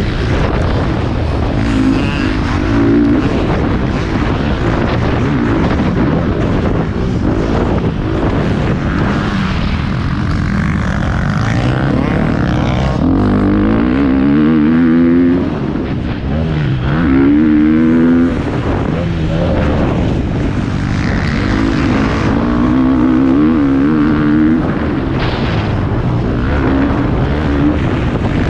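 Dirt bike engine being ridden hard, its pitch climbing and dropping again and again as the rider opens the throttle, shifts and rolls off, over a constant rough rumble.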